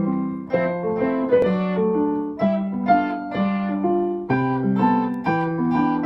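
Background music: a light tune of short piano and guitar notes played in quick succession.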